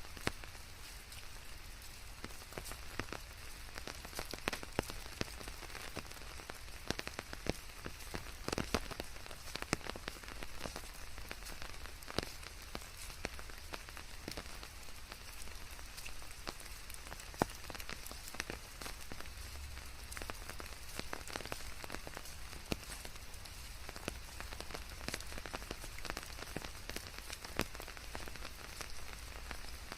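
Steady rain with many separate drops striking, scattered irregularly over an even hiss, mixed with white noise.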